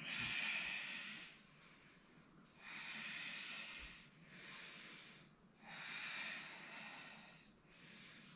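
A woman breathing audibly, long breaths in and out, about five in all, each a second or so long with short pauses between.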